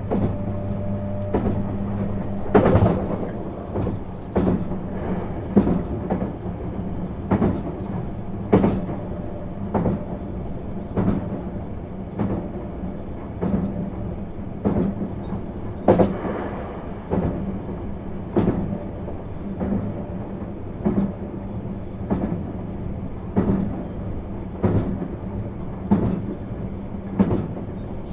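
Inside a JR East 651 series electric train on the move: wheels clacking over rail joints about every 1.2 seconds at a steady speed over a continuous running rumble. A low steady hum drops away about two and a half seconds in.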